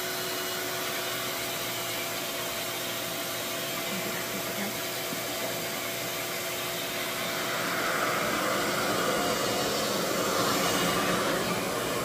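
RevAir vacuum blow dryer running steadily: a motor whir and rush of air with a faint steady hum, as its wand's suction draws in a section of hair to dry it. It grows louder about eight seconds in.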